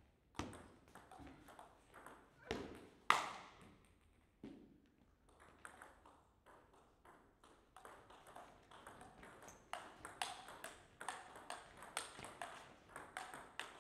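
Table tennis rallies: a celluloid ball clicking off rackets and the table in quick alternation. A short exchange ends with a louder knock about three seconds in, then a longer rally of rapid clicks fills the last six seconds or so.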